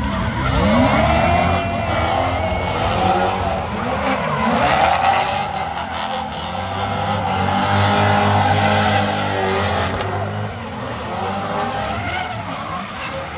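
Two drift cars sliding sideways in tandem, engines revving hard with the pitch rising and falling as the throttle is worked, over the hiss and squeal of spinning tyres. The sound fades somewhat near the end as the cars move off.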